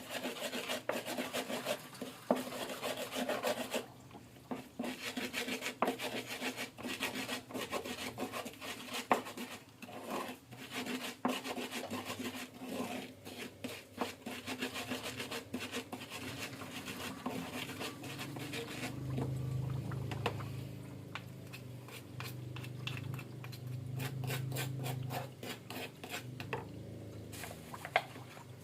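Hand food-preparation sounds: irregular scraping and rubbing strokes with small knocks of utensils, and a low hum that comes in about two-thirds of the way through for several seconds.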